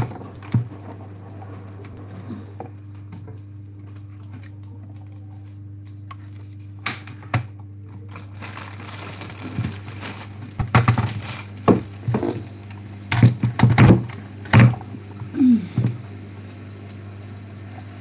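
Knocks, clicks and scrapes of potatoes and a peeler being handled on a kitchen worktop, sparse at first and coming thick and fast in the second half, over a steady low electrical hum.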